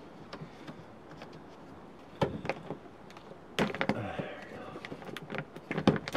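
Plastic vapor barrier sheet being peeled by hand off a tailgate's inner panel, crinkling and crackling as it pulls free of its adhesive bead. Scattered clicks at first, a louder rustling burst about three and a half seconds in, then a quick run of crackles near the end.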